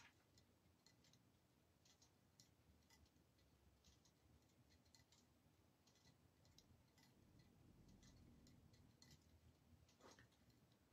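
Near silence: room tone with faint, irregular small clicks.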